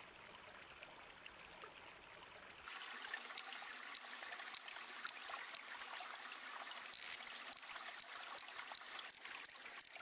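Lau's leaf-litter toad (Leptobrachella laui) calling: short, high, cricket-like chirps repeated several times a second, coming faster toward the end, over the rush of a mountain stream. It starts about three seconds in and is a male's call to attract females.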